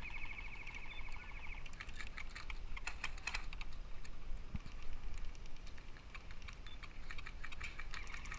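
Airsoft guns firing: rapid clattering trains of clicks, with a buzzing full-auto burst in the first second and a half and denser clusters of shots about three seconds in and again near the end.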